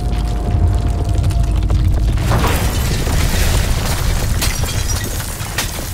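A high-rise building collapsing in an earthquake. A deep rumble runs throughout. About two seconds in, a loud rushing crash of falling debris starts, with a few sharp cracks near the end.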